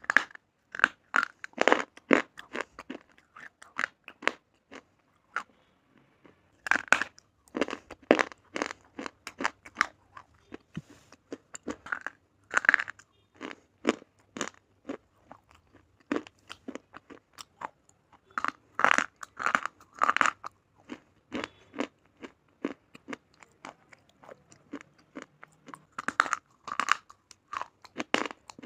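A person biting and chewing slate pencils, with sharp, gritty crunches. Bursts of loud crunching come every few seconds, with quieter crackling chews in between.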